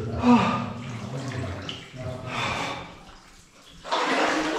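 Deep water sloshing and splashing around a person wading chest-deep through a flooded mine adit, in surges roughly every second, with a short vocal sound near the start.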